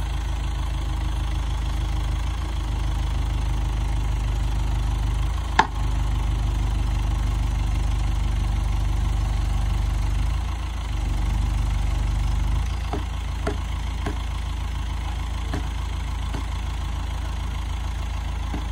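Engine of a telescopic-boom forklift idling with a steady low rumble. A single sharp knock about five and a half seconds in, and faint ticks later on.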